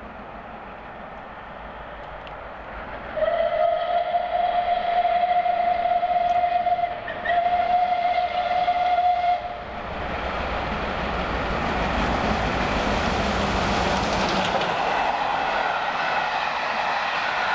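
Steam locomotive whistle sounding two long, steady blasts as the train approaches, the first about four seconds long and the second about two. Then the locomotive and its coaches rush past at speed in a loud, building noise that holds to the end.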